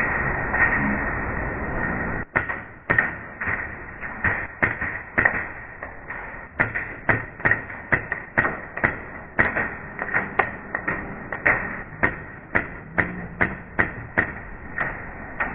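Airsoft gunfire: sharp single shots in an uneven run of roughly two a second, starting about two seconds in, over a steady hiss.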